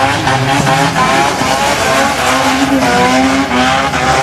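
Drag-race cars' engines revving hard as they launch and accelerate down the strip, the pitch climbing again and again.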